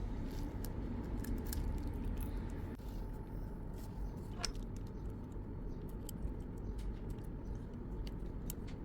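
Faint, scattered small clicks and taps of tools and parts being handled during a phone repair, over a steady low hum.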